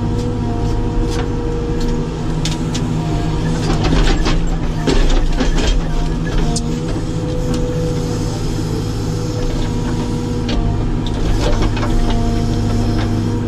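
Caterpillar 432F2 backhoe loader's diesel engine running steadily under load, heard from inside the cab, while the backhoe digs. Scattered clanks and knocks from the bucket and boom come through, thickest in the first half.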